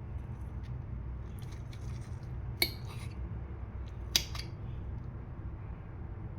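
A metal utensil clinks twice against dishware, sharply, a second and a half apart, with a few fainter taps just before, over a steady low hum.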